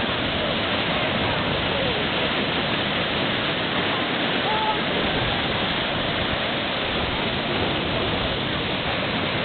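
Small waves breaking and washing over the shore: a steady rush of surf.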